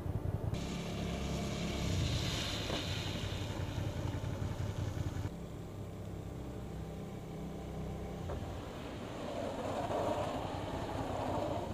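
Sport motorcycle engine running, with tyre hiss on wet pavement, during hard braking tests. The sound changes abruptly twice, about half a second in and about five seconds in.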